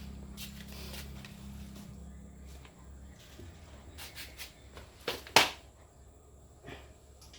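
A low electrical hum from a mains-powered device that stops about two and a half seconds in. Then come a few light clicks and one sharp knock of parts being handled.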